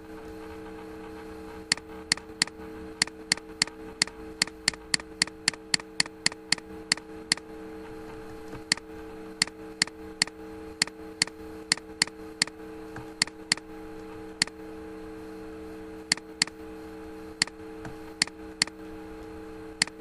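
Computer mouse clicking: single sharp clicks in irregular runs, quickest at about three a second around four to seven seconds in, over a steady electrical hum.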